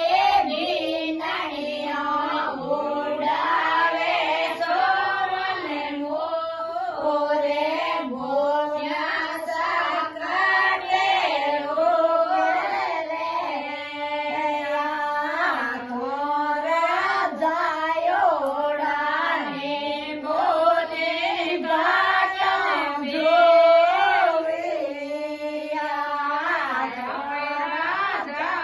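A woman singing a Marwari harjas devotional folk song in phrases, her voice sliding and ornamented between notes, with no clear instrumental beat.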